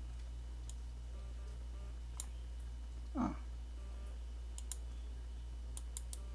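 Scattered clicks at a computer, single and in quick pairs, over a steady low hum, with one brief rising sound about three seconds in.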